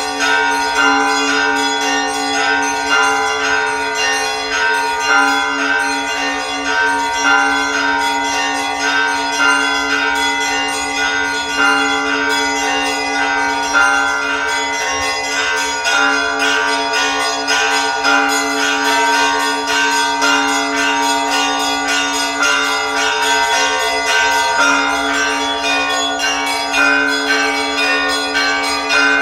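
Church bells ringing a continuous peal: smaller bells struck in rapid, overlapping strokes over the steady hum of larger bells.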